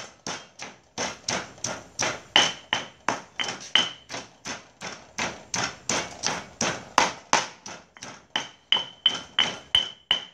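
Stone pestle pounding sliced shallots in a stone mortar, a steady run of about three strikes a second, some with a short ringing clink of stone on stone.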